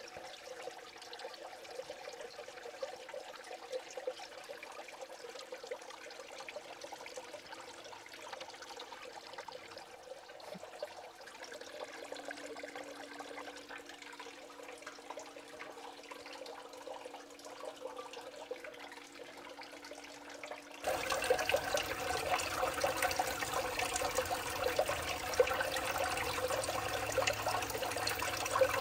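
Water running and swirling in a Blue Bowl gold concentrator, fed by a small submersible pump: a steady trickling, splashing flow with a faint steady hum. About two-thirds of the way through it abruptly becomes louder and fuller.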